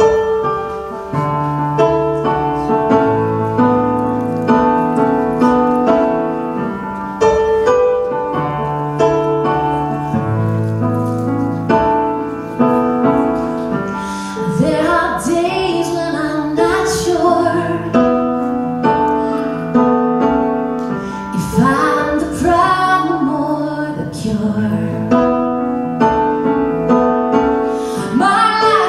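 Keyboard playing a slow piano accompaniment in held chords; a woman's solo singing voice comes in about halfway through over the keyboard.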